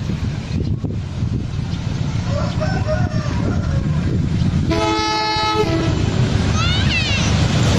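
Diesel locomotive's multi-tone horn giving one short blast, the 'semboyan 35' warning signal, about five seconds in, over the steady rumble and clatter of a passing train on the rails.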